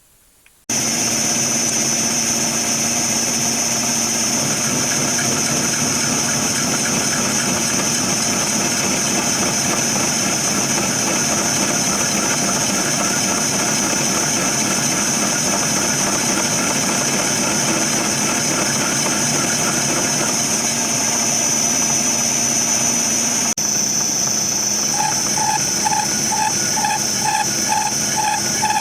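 Workshop machinery running steadily under power, with a strong high whine, starting abruptly. About 23 seconds in the sound changes sharply, and soon after a pulsing about twice a second joins the steady running.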